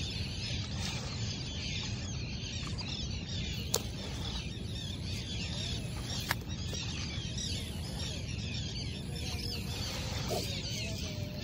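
Many small birds chirping and chattering continuously over a steady low rumble, with a couple of sharp clicks.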